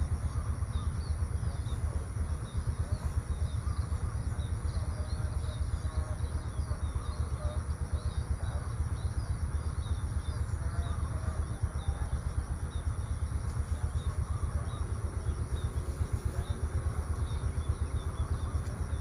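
Outdoor morning ambience: a steady low rumble with many small birds chirping high and thin throughout, over a faint steady high-pitched hum.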